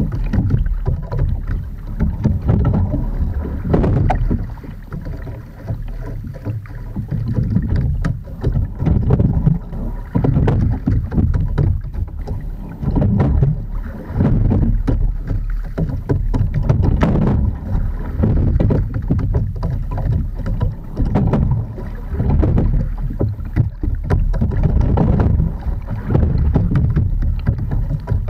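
An Edon TS515 touring sculling boat being rowed: water washes along the hull and oars, swelling with each stroke about every two and a half seconds, over a steady low rumble.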